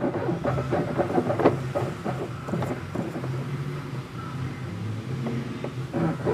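Clicks and light knocks of washing-machine parts being wiggled by hand to check for play, over a steady low hum. The knocks come mostly in the first couple of seconds and again near the end.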